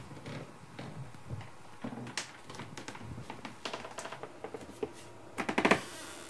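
Light footsteps and small taps and knocks on bare wooden floorboards in a small, cluttered room. About five and a half seconds in there is a brief, louder pitched squeak.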